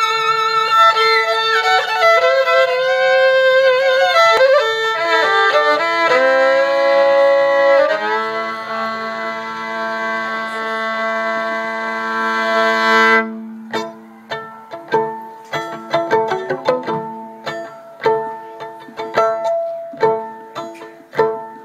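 Solo fiddle playing a slow bowed melody with vibrato and double stops, settling into a long held note that stops suddenly about thirteen seconds in. After it, short plucked string notes pick out a rhythm.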